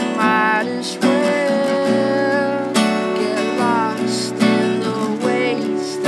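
Live band music: a strummed guitar with a keyboard playing chords and melody, chord strokes landing every second or two.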